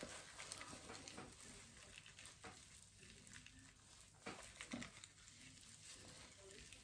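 Faint, soft wet squishing of gloved hands working hair dye through wet hair, with a few brief louder rustles.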